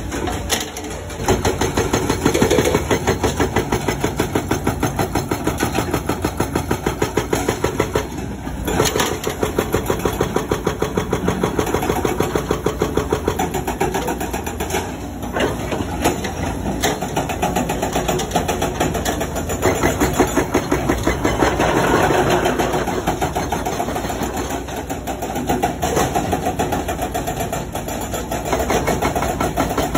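Komatsu hydraulic breaker on an excavator hammering rock in rapid, even blows over the excavator's diesel engine, pausing briefly twice.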